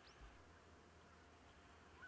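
Near silence: faint outdoor field ambience with a steady low hiss. A brief high rising chirp comes right at the start, and a soft low thump follows a quarter second later.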